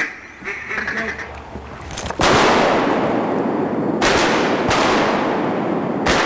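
Duck quacks at first, then four shotgun blasts at ducks, about two seconds in, four seconds in, just after, and near the end, each ringing out with a long echo.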